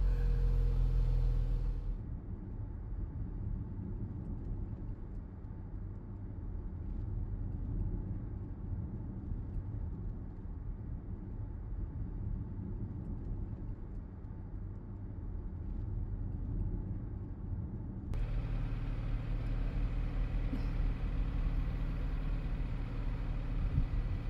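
Low, steady rumble of a car heard from inside the cabin: engine and road noise with no other sound on top. Its character changes abruptly about 2 seconds in and again near 18 seconds.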